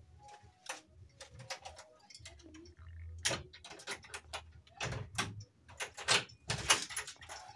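Irregular knocks, clicks and rustles of people walking along a narrow passage between timber and sheet-metal walls, brushing past hanging plastic sheeting. The loudest knocks come in clusters in the second half.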